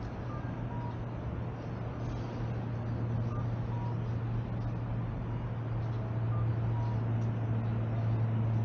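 Steady low hum of a motor vehicle's engine, growing gradually louder, with a faint two-note electronic beep repeating about every three seconds.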